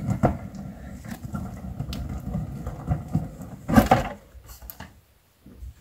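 Cardboard box of a Lotti Karotti board game handled and opened: the lid scrapes and rustles against the box, with small clicks. There is one louder bump just under four seconds in.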